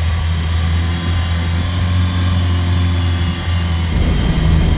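New Mercury 60 hp outboard running steadily at high revs that it won't come down from, with a constant hiss like an air leak; the owner suspects a vacuum leak. A deeper rumble joins near the end.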